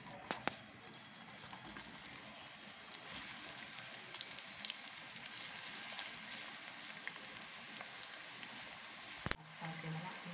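Sliced onions sizzling as they begin to fry in hot ghee, a soft, even crackle, with a few sharp clicks just after the start and once near the end.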